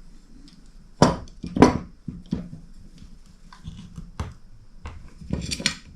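Knocks and clatter from handling metal tools and pedal parts: two loud knocks about a second in, then a scatter of lighter taps and a couple more knocks near the end.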